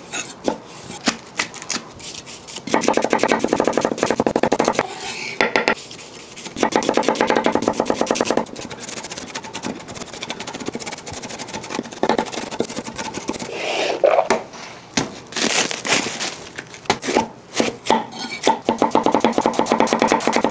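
Chef's knife chopping on a wooden butcher block: onion being sliced and then rapidly diced in quick runs of even strokes, and near the end iceberg lettuce being shredded in a fast run of cuts. Background music plays underneath.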